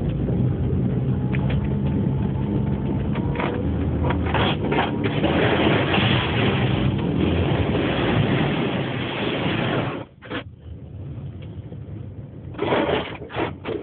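A front-wheel-drive 1984 Toyota Camry heard from inside the cabin, driving through snow. The engine pulls with a slowly rising note under a heavy hiss of tyres and snow, with a few knocks from underneath. About ten seconds in the noise drops away suddenly to a much quieter run, with a couple of brief loud rushes near the end.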